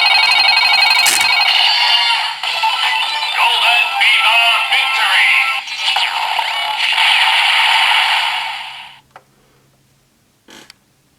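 Kamen Rider Geats DX transformation belt toy playing its electronic finisher sound effects and jingle through its small, tinny speaker. The sound stops about nine seconds in, and a brief click follows near the end.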